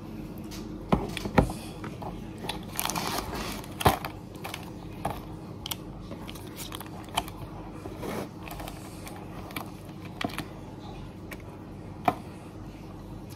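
Close-up eating sounds of a person eating noodles: chewing and slurping, with a few sharp clicks scattered through.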